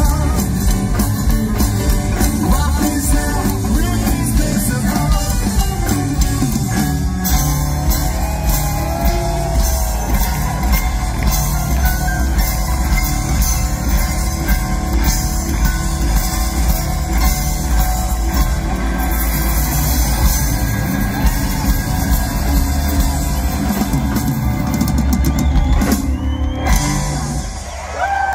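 Live rockabilly band playing at full tilt: upright bass, drum kit and electric and acoustic guitars. The music cuts off sharply near the end as the song finishes.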